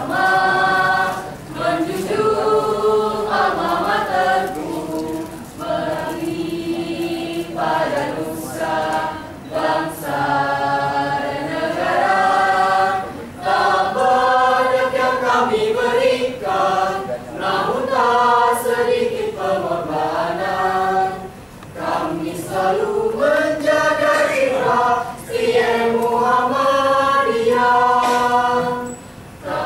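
A mixed choir of young men and women singing a song in sustained phrases, with brief pauses between phrases.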